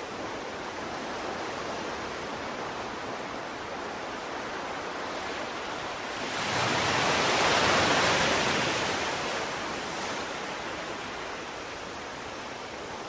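Steady rushing noise of sea surf and wind, swelling to a louder rush for about three seconds midway through, then settling back.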